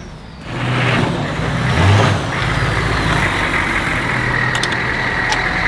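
Hummer H1 engine running at low speed as the truck drives slowly, a low steady drone. A steady high whine joins about two seconds in, and a few light clicks sound near the end.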